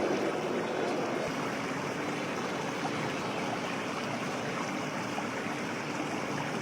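Steady rush of creek water, a constant even noise with no speech over it.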